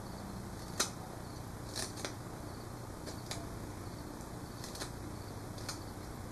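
Knife paring the cut end of a river cane shaft: a handful of short, sharp scraping cuts, scattered about once a second, over a low steady hum.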